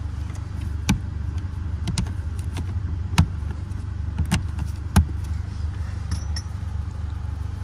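Sharp plastic clicks of a car's interior footwell trim panel and its push-in clips being pressed and handled, about five of them roughly a second apart, over a steady low hum.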